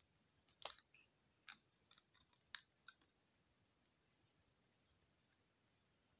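Faint plastic clicks of a Transformers Depth Charge action figure's joints and parts being worked by hand, an irregular scatter of light clicks, the sharpest about two-thirds of a second in and most of them in the first three seconds.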